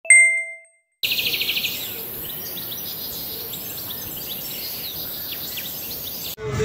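A short ringing tone at the start; then, after a second's pause, birds chirping, first a quick trill of repeated notes and then scattered calls, over a steady high hiss of insects. It stops abruptly near the end.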